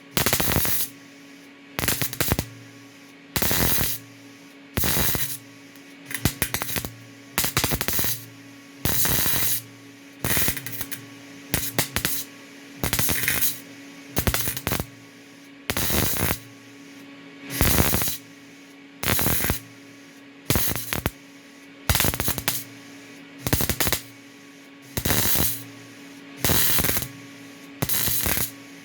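A welder laying a rapid series of short stitch welds on a lawn tractor's steel muffler. Each weld is a crackling burst of about half a second, about twenty in all, one every second and a half or so, with a steady hum between them.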